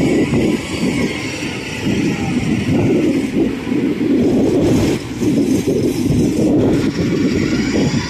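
Engine of a tracked rice-hauling cart running as the cart crawls across harvested stubble, loaded with sacks of rice. The noise is rough and continuous, with short dips about five and seven seconds in.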